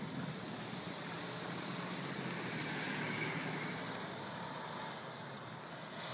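Road vehicles driving past close by: tyre and engine noise that swells about halfway through and then eases off.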